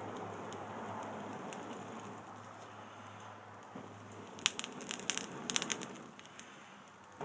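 Wood fire burning inside a Swedish torch log, with a low, steady rushing hiss. About halfway through comes a quick cluster of sharp crackles and pops from the burning wood.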